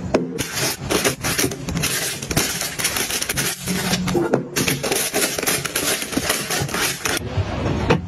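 Plastic-wrapped instant noodle packets crinkling and rustling as they are packed one after another into a plastic storage bin, with short scrapes and taps throughout.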